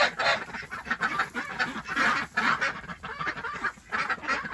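Geese and ducks calling together: a busy run of repeated harsh honks and quacks, one after another with no pause.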